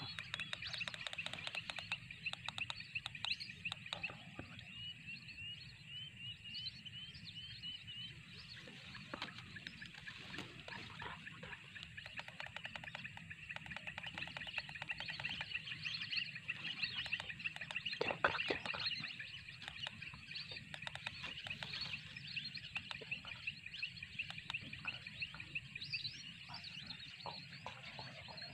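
Crakes calling over wet rice paddies within a dense, steady chirping chorus, with a run of short repeated rising chirps in the first several seconds and a single knock about 18 seconds in.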